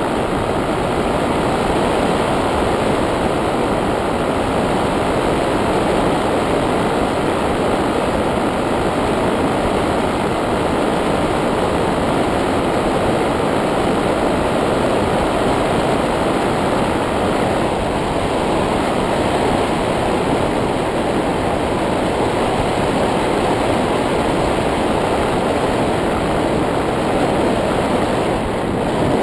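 Steady rushing noise of a model paraglider in flight, picked up by a camera carried on board. A faint high steady whine runs along with it and stops a little over halfway through.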